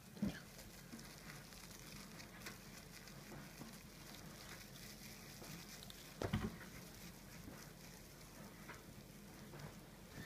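Plastic cling film crinkling faintly as hands twist it around rice and squeeze it into a ball, with two soft bumps, one just after the start and one about six seconds in.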